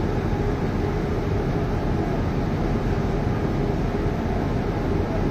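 Industrial machinery running steadily: a constant low rumble and hum with no separate knocks or changes.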